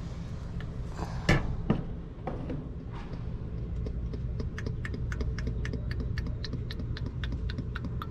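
A quart bottle of motor oil is tipped with two knocks, then glugs steadily at about three to four glugs a second as it empties into the engine's oil filler. A steady low hum runs underneath.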